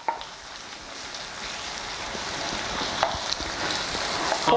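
Ground beef, onions and canned whole tomatoes sizzling in a hot frying pan while a wooden spatula stirs them. The sizzle grows steadily louder.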